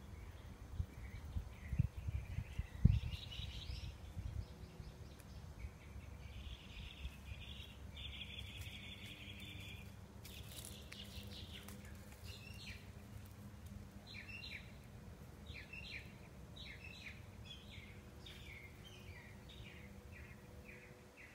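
Small birds chirping and calling over a steady low rumble. In the second half a short call repeats quickly, about twice a second.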